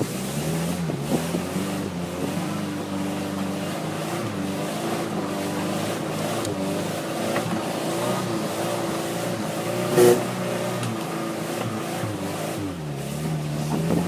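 Suzuki Vitara's engine labouring up a steep off-road hillclimb, its revs rising and falling. There is one short, loud bang about ten seconds in.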